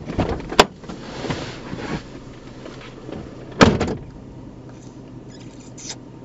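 A car door is unlatched with a sharp click, followed by rustling as someone climbs out of the seat. The door is then shut with a loud thump about three and a half seconds in.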